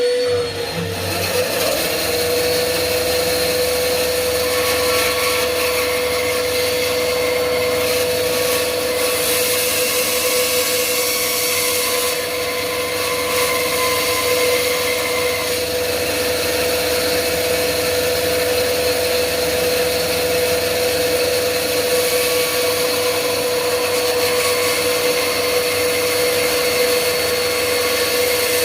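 Electric sanding tool running steadily at full speed, with a constant high whine and a hiss of sanding over it.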